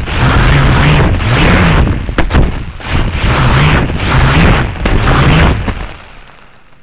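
Small quadcopter stunt drone's motors and propellers running loud and close to a mini camera mounted underneath, the buzz surging up and down with the throttle. A few sharp knocks come about two seconds in, and the motors cut out about six seconds in.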